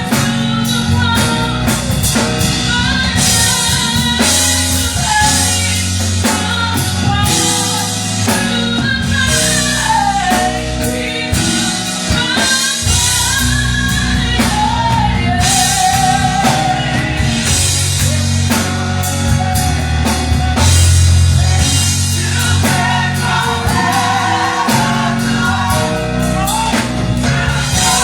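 Gospel music played live: a choir singing over a band with a drum kit keeping a steady beat.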